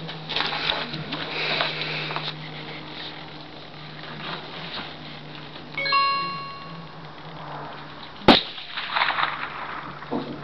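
A single rifle shot from an M1903A3 Springfield in .30-06: one sharp crack about eight seconds in.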